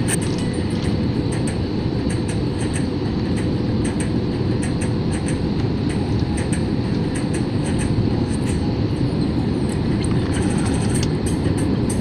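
Steady low roar of an airliner cabin on final approach: jet engines and rushing airflow heard from a window seat, with the flaps extended.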